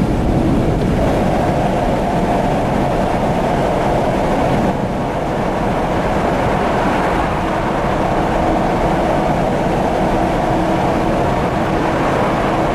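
Car road noise heard from inside the cabin: a steady rumble of tyres and engine with a faint constant hum, while driving into and through a road tunnel.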